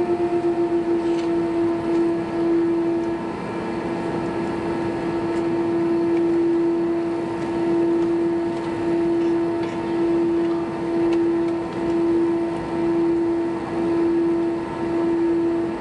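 Airbus A320's jet engines running at idle during taxi, heard inside the cabin: a steady hum with one strong steady tone, swelling and fading in loudness about every second or so.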